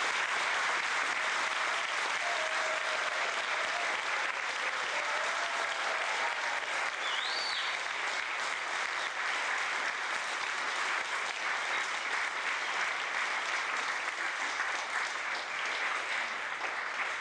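Audience applauding steadily: a dense, even clapping that holds throughout and begins to thin out near the end.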